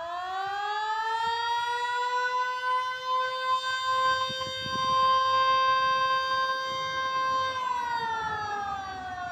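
MS-290 outdoor warning siren sounding the attack signal, a rising and falling wail. Its pitch climbs over the first couple of seconds, holds steady for about five seconds, then falls away near the end.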